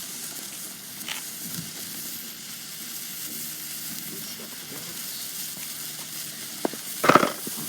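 A lit consumer firework hissing steadily as it burns, with a quick run of sharp cracks about seven seconds in.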